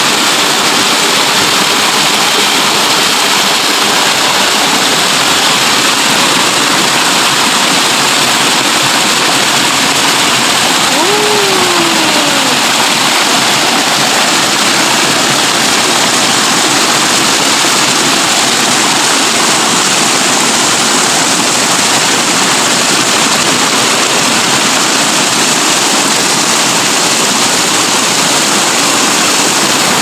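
Small waterfall cascading over rocks: a loud, steady rush of splashing water.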